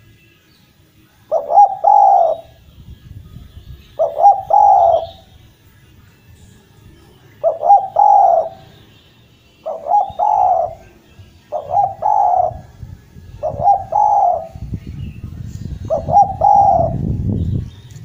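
Spotted dove (derkuku) cooing: seven short phrases of two or three notes each, repeated about every two seconds. A low rumble runs under the last few phrases.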